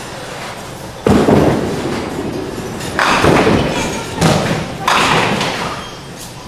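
Duckpin bowling ball thumping down onto the wooden lane, then clattering into the pins about two seconds later, followed by two more bursts of clatter.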